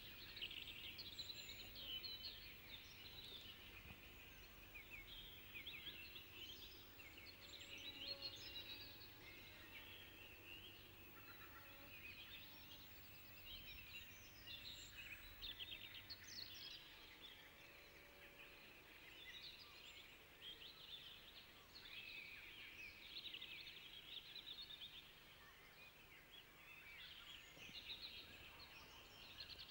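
Faint birdsong: many quick chirps and twitters from small birds calling all through.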